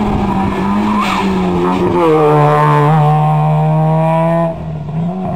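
Small hatchback slalom car's engine revving hard. Its pitch dips and rises in the first two seconds, then holds high and steady until a sudden drop about four and a half seconds in.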